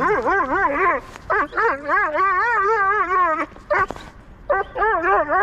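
A dog whining in long, high-pitched, wavering cries: three drawn-out whines broken by short pauses, with a brief yelp between the second and third. The dog is excited.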